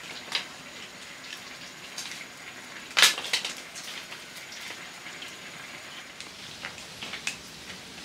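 Small wood fire crackling with scattered pops over a steady hiss, and one loud sharp knock about three seconds in.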